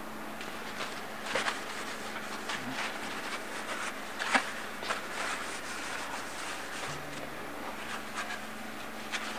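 Paper towel rubbing and scrubbing on the turbo kit's metal pipes, heard as short irregular scratchy rustles while they are wiped clean of handprints and grease, over a steady low hum.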